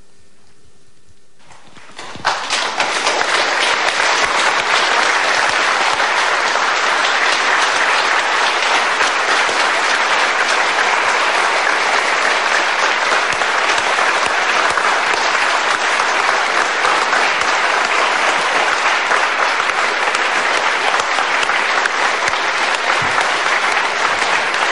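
Large audience applauding. The clapping starts about two seconds in, after a brief faint hum, then holds as dense, steady applause.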